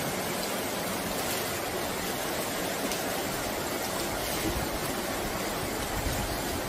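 Fast-flowing muddy floodwater rushing down a street, a steady, unbroken rushing noise.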